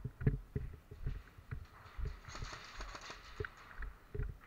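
Footsteps of a player moving on a concrete floor, an irregular series of dull thumps, with clothing and gear rustling and a short hiss of rustle a little past the middle.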